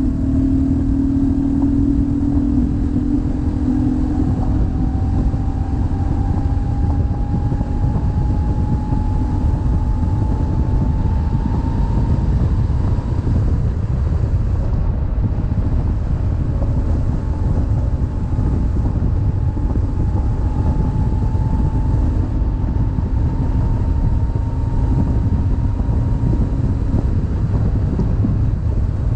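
BMW GS boxer-twin motorcycle running at road speed, with a steady engine drone and wind rushing over the microphone. The engine note rises slowly, twice.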